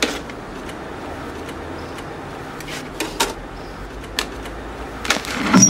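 Vinyl record and turntable being handled: a few sharp clicks and knocks over a steady low hiss as the record is set down and the tonearm is moved. Music starts near the end.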